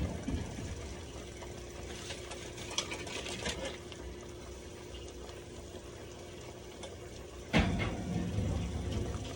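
Steady low kitchen hum with a faint steady tone, a few light clicks and clinks, then a sudden knock about three-quarters of the way in, followed by rustling and handling noise.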